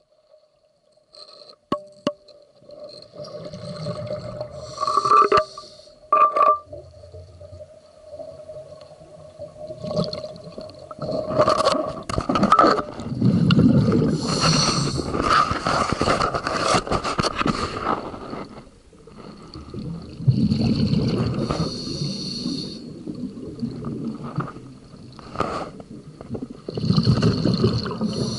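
Scuba diver breathing through a regulator underwater: several surges of bubbling exhalation a few seconds long, with quieter hissing and a faint steady tone between them.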